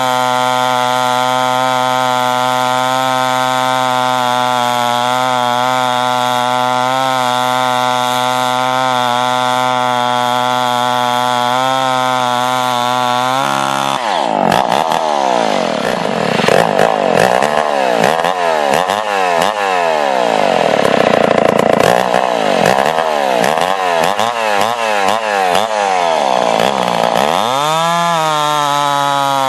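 Homelite Super XP-1050 two-stroke chainsaw running at a steady speed. About halfway through, its engine speed starts swinging up and down over and over for some thirteen seconds, then settles back to a steady run near the end.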